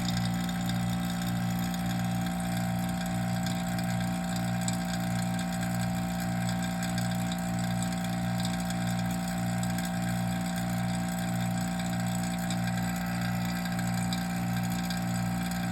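Electric vacuum pump running steadily: a constant motor hum with an even low pulsing about one and a half times a second.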